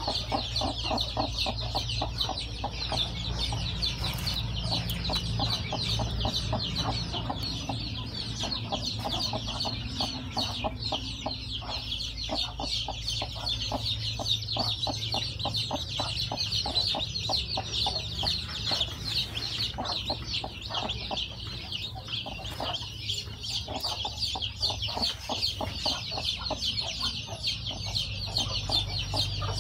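Newly hatched chicks peeping continuously, many rapid high-pitched cheeps overlapping.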